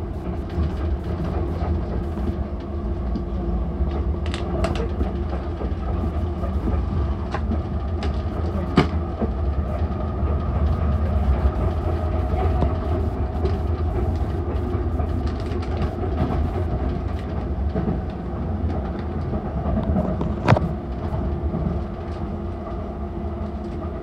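Docklands Light Railway train running along the track, heard from inside the carriage: a steady low rumble with a steady hum over it, and a few sharp clicks, the loudest about twenty seconds in.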